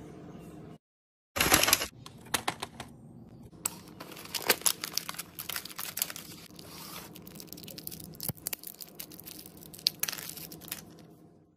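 Paper and plastic wrapping torn and crinkled by hand as a small toy is unwrapped, with a loud tear about a second and a half in followed by many scattered crackles and rustles.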